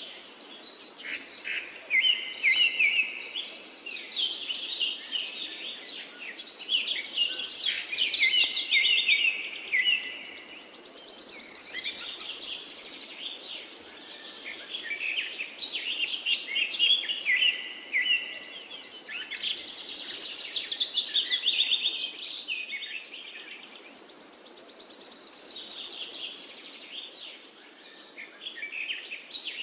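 Songbirds singing and chirping, with rapid overlapping phrases and trills throughout, over a steady faint background hiss. A high, buzzy trill recurs every six to eight seconds.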